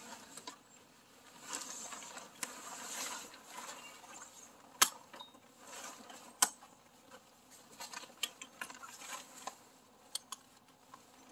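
Fabric boat cover rustling and swishing in spells as it is pulled and spread over the boat, with a few sharp clacks; the two loudest come about five and six and a half seconds in.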